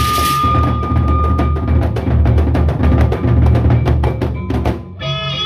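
Gendang beleq ensemble playing: large double-headed gendang beleq drums beaten by hand and mallet in a fast, dense pattern, with many sharp strikes on top. Just before the end the drumming drops away and a pitched melody line takes over.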